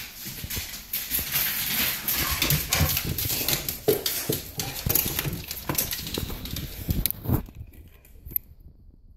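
A dog's claws clicking and pattering on a hardwood floor as it moves about, going quiet about seven and a half seconds in.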